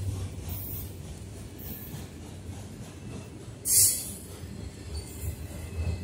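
Autorack freight cars rolling past with a steady low rumble of wheels on rail, broken by brief high-pitched wheel squeals. The loudest squeal comes about two-thirds of the way in.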